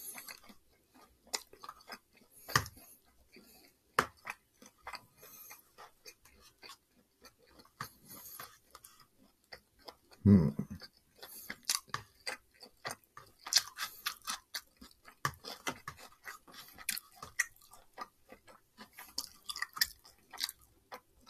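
Close-miked chewing and wet mouth sounds of a person eating takeout orange chicken and fried rice, with scattered sharp clicks and crackles. A louder low thump comes about ten seconds in.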